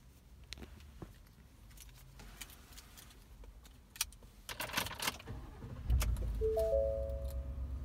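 Keys jangling for about half a second, then the 2019 Ford F-150's 5.0 V8 starting and running at a low idle, heard from inside the cab. About half a second after the start, a repeating three-tone dashboard chime begins.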